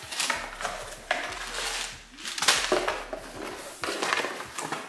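Hands handling and opening a delivered package: rustling and crinkling of packaging with a run of small knocks and clicks, the loudest about two and a half seconds in.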